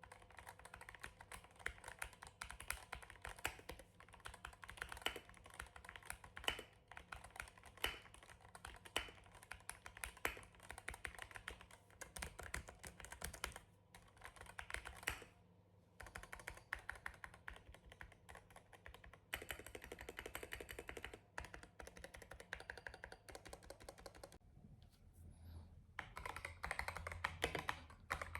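Fast typing on a mechanical keyboard: a dense clatter of keystrokes with a few short pauses.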